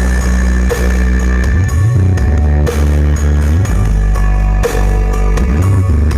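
Loud rock music with guitar and drum kit, with a heavy bass line whose notes slide up and down, played through a large sound system.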